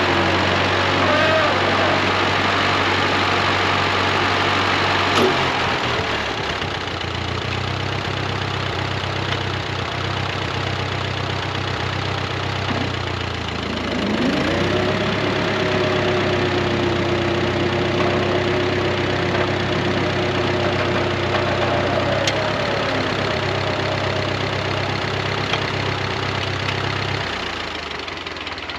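A 1948 Ford 8N tractor's four-cylinder engine runs steadily under load, driving a PTO-powered finish mower while mowing in third gear. A whine rises about halfway through and holds for several seconds, and the sound fades near the end.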